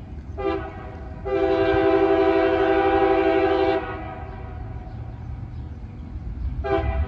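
Horn of an approaching CSX freight locomotive sounding a chord of steady tones for the grade crossings: a short blast, then a long blast of about two and a half seconds, then another blast beginning near the end. The locomotive's diesel rumble runs low underneath.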